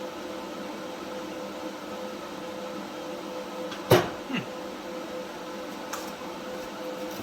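Steady electrical hum from a Primeweld TIG 225X welder set up for AC TIG. About four seconds in comes one sharp crack with a short falling tone after it.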